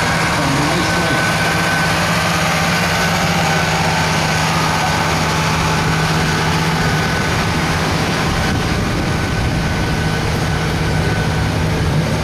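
1985 Chevrolet pickup's gasoline engine running steadily at constant revs under load as the truck drags a weight-transfer pulling sled, its pitch holding level.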